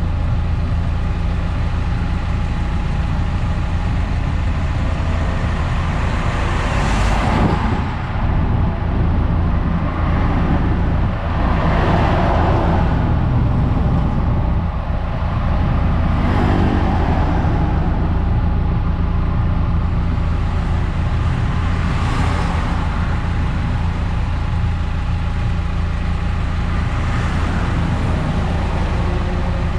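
Eunos Roadster on the move: a steady low drone of engine and road noise, with a swell of rushing noise every five seconds or so.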